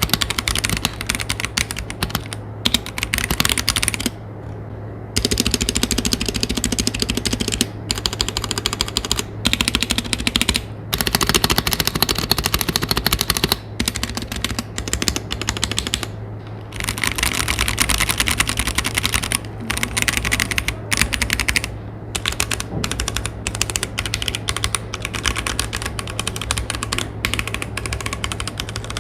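Fast typing on a Womier K98 acrylic-case mechanical keyboard with Gateron Brown tactile switches: dense runs of fairly quiet, slightly high-pitched key clacks broken by short pauses, over a steady low hum.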